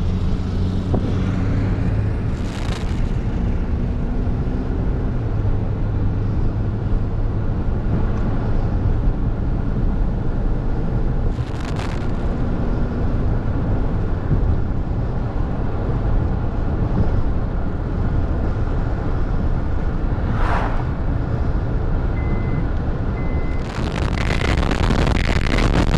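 Car driving: steady low engine and road rumble, with a few short louder swells as something passes. Near the end a high beep repeats about once a second.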